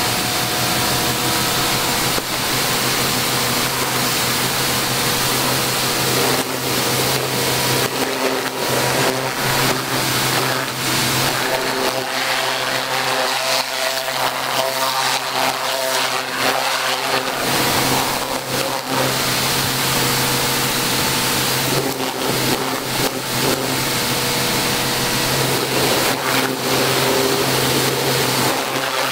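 Pressure washer running steadily: its motor hums under the hiss of the water jet as it sprays muddy caving gear on tarmac.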